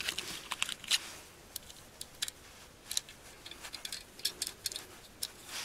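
Irregular sharp clicks as .22 Long Rifle cartridges are pressed one by one into a Henry AR-7 survival rifle's magazine by hand.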